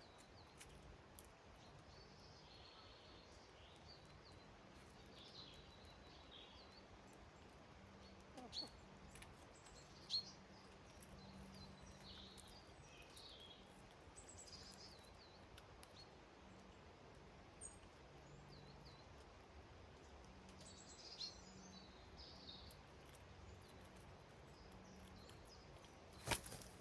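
Faint, scattered chirps and short calls of small garden songbirds, with a few sharp clicks, the loudest about ten seconds in and again just before the end.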